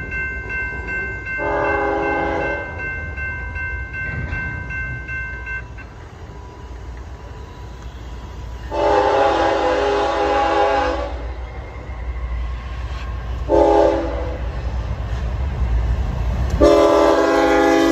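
Air horn of the Norfolk Southern ES44DC diesel locomotive, blowing the grade-crossing signal as the train approaches: long, long, short, long, the last blast still sounding at the end. A low diesel rumble under the horn grows louder as the train nears.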